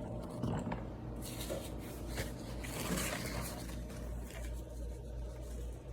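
Handling noise from the plastic dust compartment of a podiatry micromotor's aspirator being held and turned: irregular light rustles and scrapes over a steady low hum.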